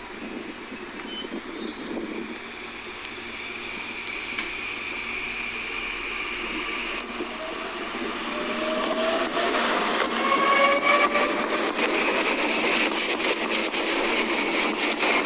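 7500-series electric train pulling away, its traction motors growling. From about halfway through, a whine rises in pitch and the sound grows louder as the train accelerates.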